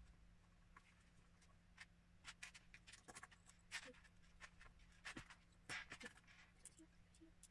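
Faint, scattered clicks and light clatter of small plastic Lego pieces being handled and pressed together, with a few sharper clicks around the middle, over a faint steady hum.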